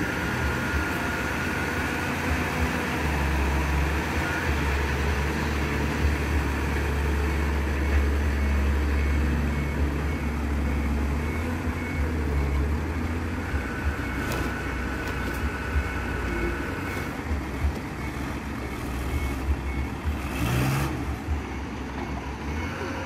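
Diesel dump truck engine running, louder for several seconds while the hydraulic hoist tips the loaded bed, with a thin steady whine heard twice.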